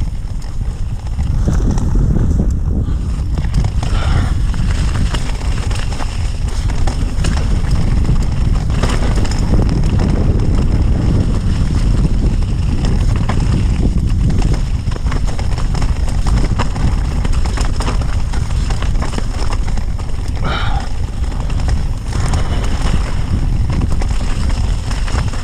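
Mountain bike rattling and clattering over a rough off-road trail, with a steady low rumble of wind and ground noise on the bike-mounted camera's microphone.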